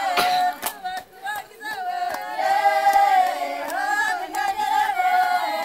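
A group of Malagasy women singing together in chorus, a funeral song praising the dead man, with several sharp hand claps among the voices. The singing dips briefly about a second in.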